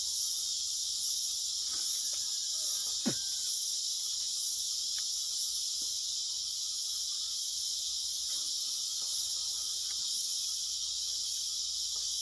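A steady, high-pitched insect chorus drones throughout, with a single sharp click about three seconds in and a few fainter clicks.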